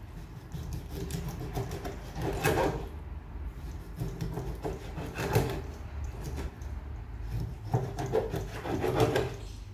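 Knife strokes scraping and cutting across a piece of raw tuna on a plastic cutting board, in groups of repeated strokes, the loudest about two and a half, five and a half and nine seconds in.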